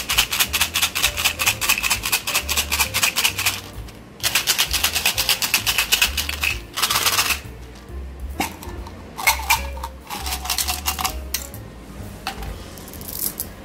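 A plastic bottle of Orbit chewing-gum pellets shaken, the pellets rattling fast inside it in two long runs. Then a few scattered clicks and rattles as the pellets are tipped out into a hand.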